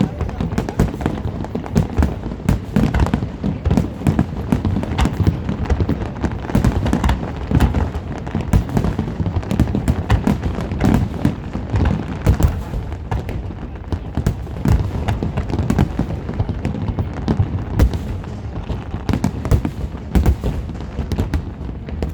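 Large fireworks display: a dense, continuous barrage of booming shell bursts and sharp cracks, several a second.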